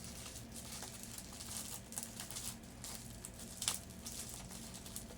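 Hands handling a taped-up watch package: light rustling and crinkling of the wrapping, with a sharper click about three and a half seconds in.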